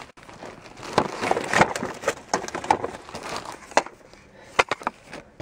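Handling noise of a clear plastic zip bag of wood-mounted rubber stamps: irregular crinkling rustles of the plastic with small clicks and knocks of the wooden blocks, quieter for a moment near the end.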